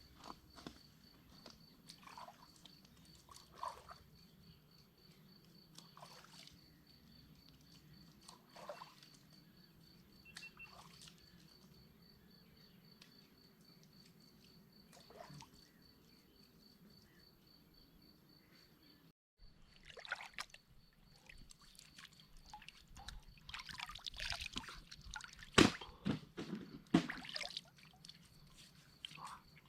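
Water splashing and trickling in louder bursts during the second half. Before that come scattered soft clicks over a faint, steady, pulsing high chirring, like crickets.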